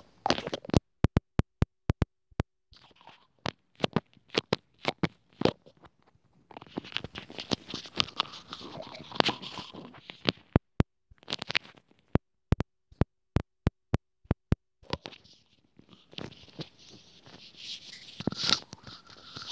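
Close-up ASMR handling sounds: a string of sharp taps and clicks, with two stretches of crinkling, rustling noise in the middle and near the end, as wired earbuds and a small plastic object are handled right at the microphone.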